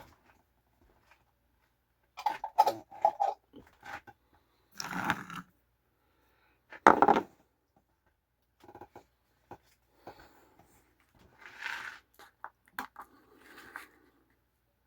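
Fork clinking and scraping against a ramen bowl in several short clusters, with a few louder bursts of handling and eating.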